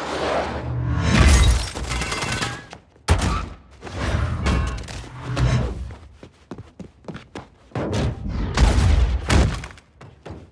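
Designed action-film fight sound effects: heavy punches and body impacts with deep thuds and a shattering crash, coming in several loud bursts with a quick flurry of short hits in the middle.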